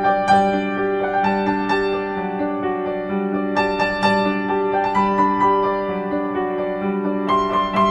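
Background music: a keyboard or piano melody over held notes, the notes changing every half second or so.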